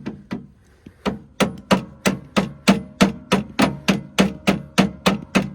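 Rapid, even hammer taps, about three a second, striking to drive an old cotter pin out of a Honda HS621 snowblower's wheel axle.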